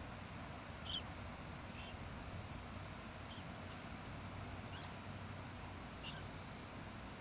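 A few short, high animal chirps scattered over a steady background hum, the loudest about a second in.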